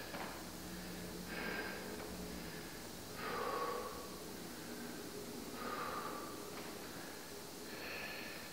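A man breathing hard under exertion: four forceful breaths, about two seconds apart.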